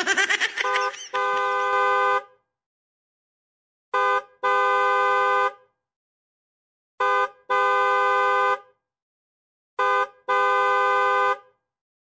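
Truck horn honking in a repeated pattern: a short toot followed at once by a longer one, four times over, about three seconds apart.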